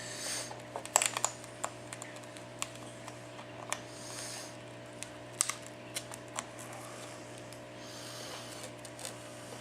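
Scattered sharp clicks and ticks, some in quick clusters, from small tools working at the edge of an iPad 4's cracked glass digitizer as it is pried loose. A steady low hum runs underneath.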